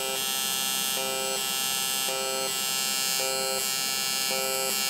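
TIG welder arc buzzing steadily while welding an aluminium heat-exchanger tube, in pulse mode. The buzz swells and eases in a regular beat about once a second.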